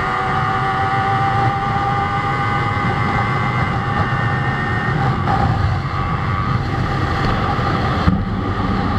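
Sport motorcycle engine running at high revs at a steady pitch while riding at speed, with a heavy rush of wind noise underneath.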